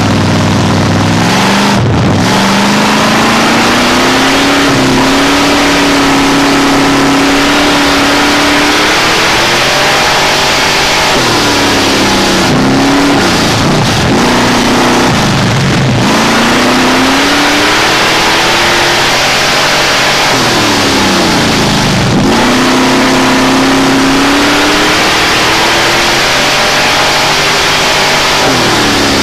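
Street stock race car's engine heard from inside the cockpit, running hard on a dirt oval. Its pitch falls away and climbs back up several times as the throttle is lifted and reapplied.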